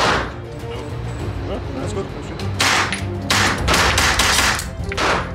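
Semi-automatic Thompson carbine in .45 ACP firing: one shot at the start, then a quick string of about half a dozen shots from about two and a half seconds in. Background music plays underneath.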